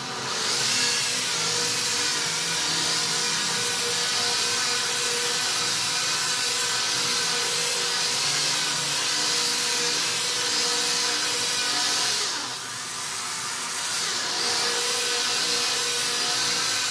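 Electric polisher with a foam pad running steadily on a painted steel tailgate, buffing in a 2-in-1 polishing compound over dry-sanded paint. About twelve seconds in the sound briefly drops, then comes back up.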